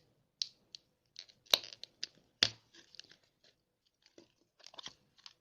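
A plastic toy surprise egg being opened by hand: scattered crackling and crinkling of plastic, with two sharp cracks about a second apart in the middle.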